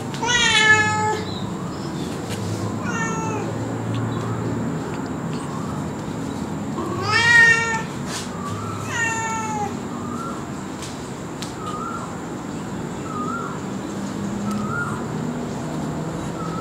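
Domestic cat meowing four times: long, drawn-out meows that fall in pitch at the end, the loudest about half a second and about seven seconds in.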